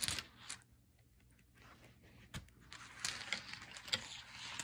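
Rune stones being handled: faint rustling and a few small clicks. These start after about a second and a half of near silence, with one sharper click a little past two seconds.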